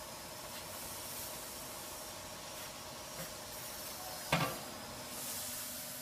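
Steady hiss with a faint hum from a vertical baler's hydraulic power unit running while shredded paper is fed into the chamber by hand. One sharp knock about four seconds in.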